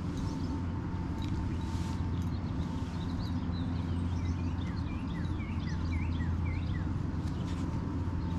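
Small birds chirping in a quick series of short downward-sweeping calls, thickest in the middle, over a steady low rumble.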